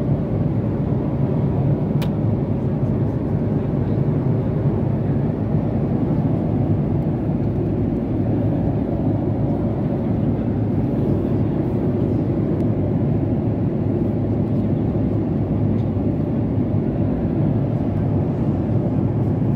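Steady cabin roar of a Boeing 767-400ER at cruise: its GE CF6 turbofans and the airflow over the fuselage make a constant low rumble. A single light click about two seconds in.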